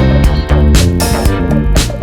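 Background music with a steady beat: a funky groove with guitar and bass.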